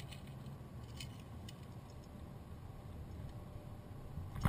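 Water lapping against the twin hulls of a WaveWalk W500 kayak, heard as a low rumble with a few light ticks and a sharper knock near the end.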